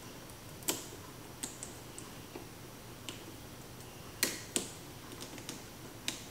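Scattered sharp clicks of plastic wire splice connectors being squeezed shut with pliers, with two louder snaps close together about four seconds in.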